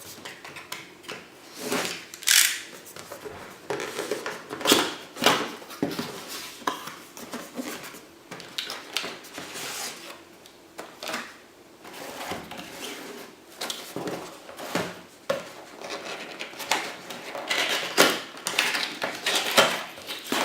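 A processor's retail box and its packaging being opened and handled: irregular rustling, scraping and sharp clicks.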